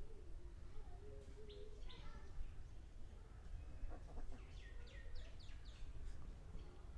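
Faint bird chirping in the background: a few scattered short chirps, then a quick run of short falling chirps about four to six seconds in.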